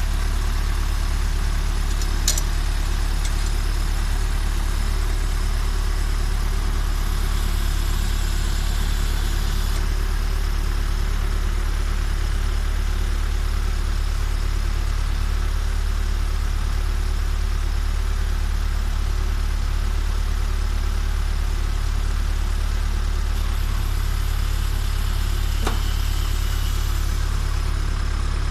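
MTZ 552E tractor's four-cylinder diesel engine running at a steady speed, driving the log splitter through the PTO. There is a light click about two seconds in.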